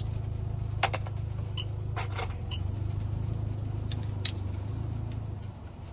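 A vehicle engine idling with a steady low drone that eases off near the end, with a few sharp clicks about one, two and four seconds in.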